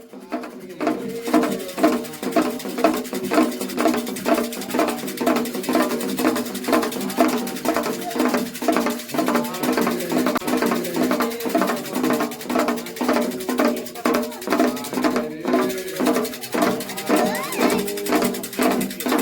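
Candomblé ritual music: atabaque hand drums beat a steady rhythm under a group singing a chant.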